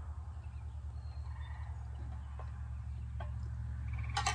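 A short, rapidly pulsed animal call about four seconds in, over a steady low rumble.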